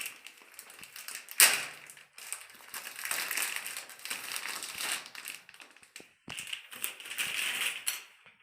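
Clicking, tapping and scraping of hands working a flexible connection pipe and its fittings onto a water heater's inlet, with one sharp knock about one and a half seconds in.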